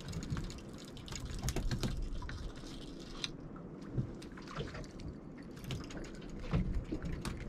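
Sea water sloshing and dripping at a small boat's side as a hooked mackerel is brought up, with scattered light clicks and knocks.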